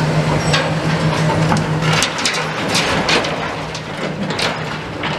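Excavator engine running with a steady low hum. About two seconds in, a grab-load of bricks and rubble drops into an empty steel skip: a loud clattering crash of many impacts lasting a couple of seconds. The noise is big because the skip is empty.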